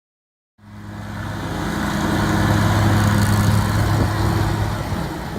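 Zero-turn riding lawn mower's engine running steadily, cutting in abruptly about half a second in, growing louder to a peak mid-way and easing slightly near the end.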